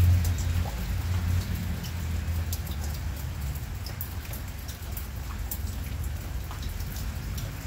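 Heavy rain coming down, with scattered individual drops ticking and pattering on a surface close by. A low rumble sits under it for the first couple of seconds and then fades.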